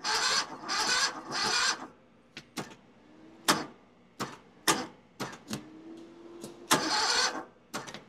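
23 hp mini skid steer engine being cranked in freezing cold without catching: three short bursts of the starter turning it over, then a run of sharp separate clicks and one more brief crank near the end.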